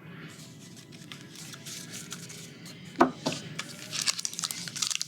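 Trading cards being handled and flipped through by hand. Near the end a foil card-pack wrapper starts to crinkle and tear open. There is a brief vocal sound about three seconds in.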